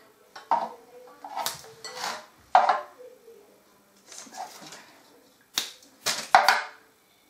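Paper and foil wrapping of a chocolate bar being torn and crinkled open: a series of sharp crackles and rustles, the loudest near the end.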